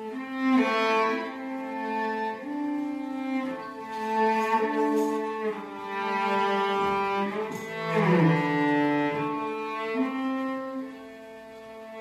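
Background music: a slow melody of long held notes.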